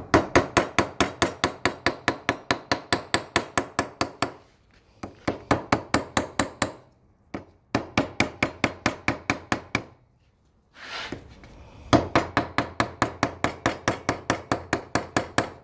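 Ball-peen hammer tapping rapidly around the edge of a rubberized gasket sheet held against a carburetor flange, cutting out a gasket by hammering it against the metal edge. About five or six taps a second, in four runs broken by short pauses.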